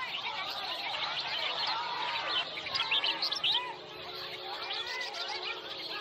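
Many caged songbirds singing at once in a bird singing competition, a dense chorus of overlapping chirps and whistled phrases.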